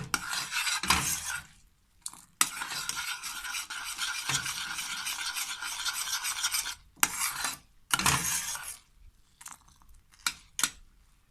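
A spoon stirring caramelizing sugar in a saucepan, scraping steadily against the pan. It pauses briefly about two seconds in, then after about seven seconds gives way to two short strokes and a few light taps.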